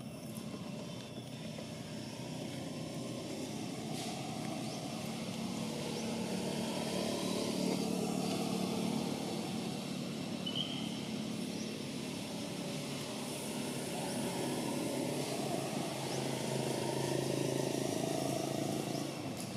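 A low motor-engine drone that swells louder and fades off twice.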